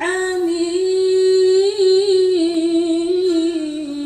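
A woman's voice in melodic Quran recitation (tilawah), holding one long ornamented vowel with a quick wavering vibrato, the pitch sinking slightly toward the end.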